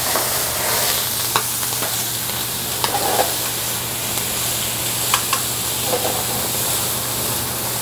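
Chicken breast sizzling hard in a hot sauté pan just deglazed with white wine. Several sharp metal clicks come as tongs turn the chicken against the pan.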